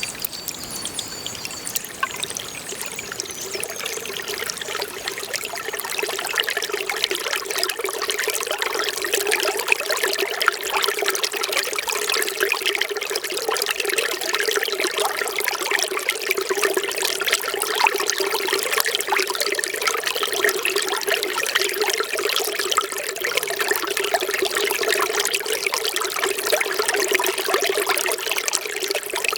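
Running water trickling and pouring without a break, building up over the first few seconds and then holding steady.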